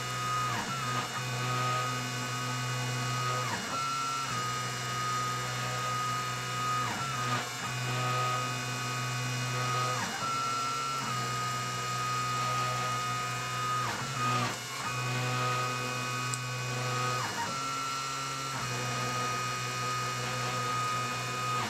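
Stepper motors of a CNC machine whining steadily as they move a hot-wire pyrography tip across a board. The pitch glides and shifts every three to four seconds as the moves change.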